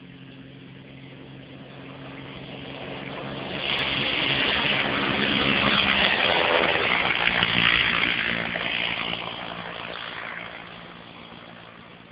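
Piper Pawnee crop-duster's piston engine and propeller on its takeoff run, growing louder as the plane approaches, loudest as it passes close by with the pitch dropping, then fading away over the last few seconds.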